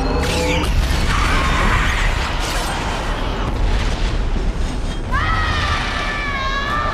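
A film battle soundtrack: deep rumbling booms and crashes of explosions over orchestral score. About five seconds in, a long shouted war cry rises and is held to the end.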